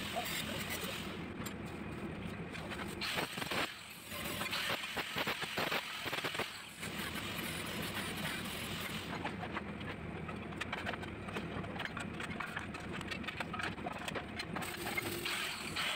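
Steady welding-workshop noise: a continuous machine hum with irregular crackles and clatter.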